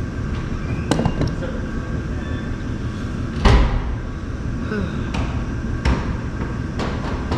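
Electric sander running steadily, with a few sharp knocks against the workpiece, the loudest about halfway through.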